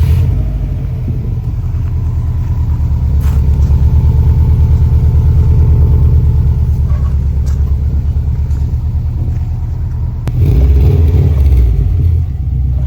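2007 Subaru STI's turbocharged flat-four catching on a cold start and idling steadily through a newly fitted HKS exhaust. The sound grows briefly louder for about two seconds, starting about ten seconds in.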